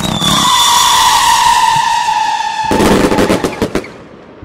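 Fireworks: a loud whistling firework, its whistle steady and falling slightly in pitch over a rushing hiss for about two and a half seconds, then a rapid string of sharp cracks and bangs for about a second that fades away.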